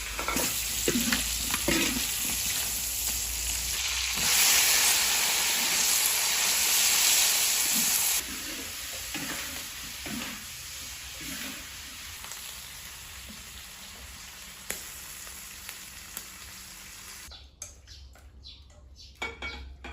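Wild pine mushrooms and cured pork stir-frying in a hot pan: a steady sizzle with spatula stirring swells to a loud hiss about four seconds in, eases off about four seconds later, and cuts off suddenly near the end.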